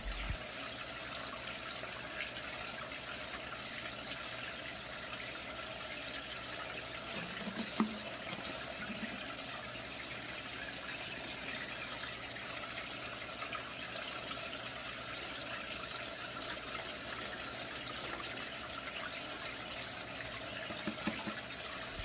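Water falling into a pond, trickling and splashing steadily as a submersible pump keeps it circulating. A brief faint knock comes about eight seconds in.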